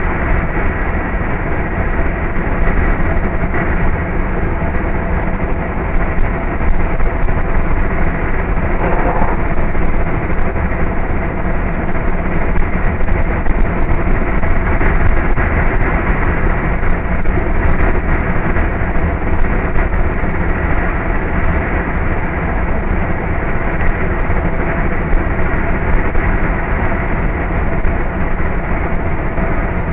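Steady engine and road noise inside a Scania truck cab cruising at about 77 km/h, the engine holding around 1200 rpm.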